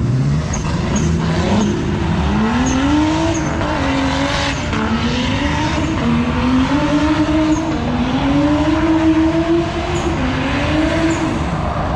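Drift car's engine revving hard, its pitch rising and falling several times as the throttle is worked through the slides, over tyre squeal from the car sliding on the tarmac.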